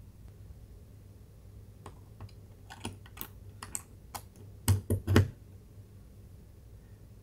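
USB cable plug knocking and scraping against a glossy plastic panel and pushed into a USB port: a run of small sharp clicks over about three seconds, the loudest three close together about five seconds in as the plug goes home.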